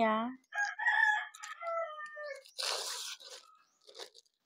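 A rooster crows once, a long call that falls in pitch at its end, starting about half a second in; shortly after, a plastic bag rustles briefly as it is handled.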